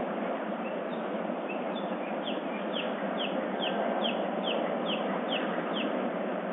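A bird singing at dawn: a run of about nine quick notes, each sliding down in pitch, repeated about twice a second, with a few fainter notes before it, over a steady background hiss.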